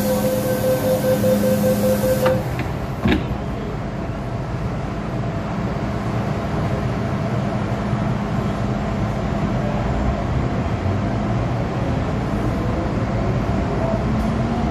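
MTR Island Line M-Train departing a station. A steady tone with a hiss cuts off about two seconds in, a single knock follows about three seconds in, then the train's steady running noise as it pulls away.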